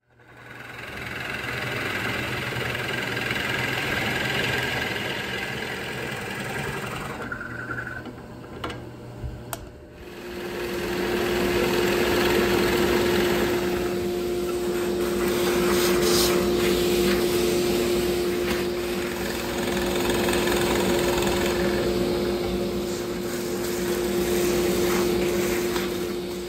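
A drill press running a large Forstner bit, boring a series of weight-relief holes into a wooden guitar body, with a shop vacuum running alongside to clear the chips. The machine noise drops away briefly about 7 seconds in, then comes back as a steady drone with a clear hum for the rest of the time.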